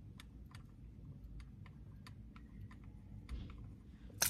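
Light, scattered clicks of jewelry, beaded bracelets and rings knocking together as a hand moves, with one sharper click near the end.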